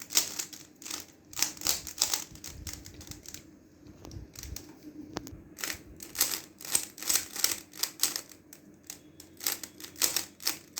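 Toykart stickerless 3x3 speed cube being turned quickly by hand: a fast, irregular run of plastic clicks as the layers snap round. The clicking thins out for about two seconds midway, then comes thick and fast again.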